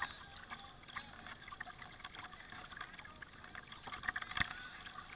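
Water trickling and splashing off kayak paddle blades as they dip and lift, with scattered small knocks, the sharpest about four and a half seconds in.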